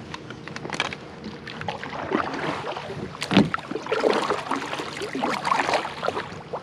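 Irregular knocks and scrapes of an Old Town Autopilot 136 fishing kayak's hull and gear being handled and moved at the water's edge, with one louder thump about three and a half seconds in.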